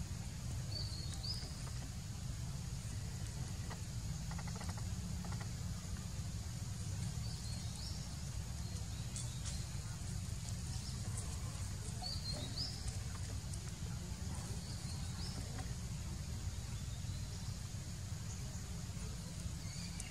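Outdoor ambience: a steady low rumble under a constant high insect hum, with a bird giving a short rising chirp every few seconds.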